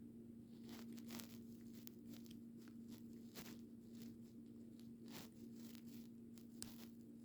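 Faint scattered clicks and rustles of LEGO Technic pieces being handled, over a steady low hum.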